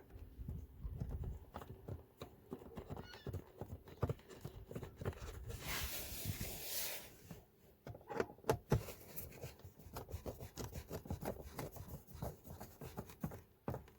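Irregular clicks and light knocks of hands working plastic trim and tools while a filter cover is refitted, with a short rustling scrape a little past the middle.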